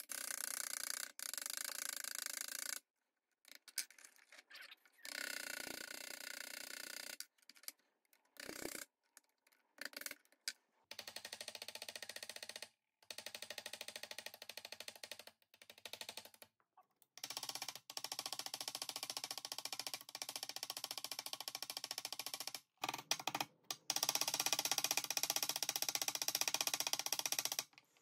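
Rapid light taps of a small hammer peening the cut end of a brass pivot rod on a Swiss Army knife, mushrooming it into a rivet head. The taps come in several short runs broken by abrupt silences.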